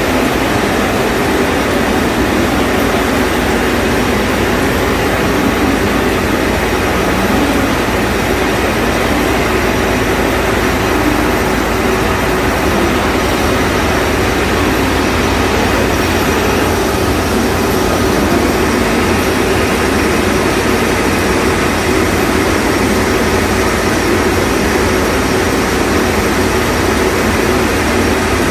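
Tea-leaf processing machines running, electric motors driving belts and rollers that carry green tea leaf. A loud, steady mechanical din that does not change.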